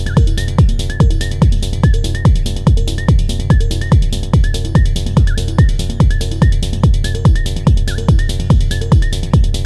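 Techno/psy pattern playing on an Elektron Model:Cycles groovebox: a kick drum on every beat, about two a second, over a steady bass line, with short high synth blips between the beats.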